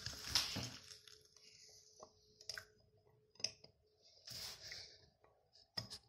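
Espresso from the bottomless portafilter of a Cafelat Robot manual lever espresso maker trickling into the cup, then breaking into scattered drips and short sputters as the shot ends.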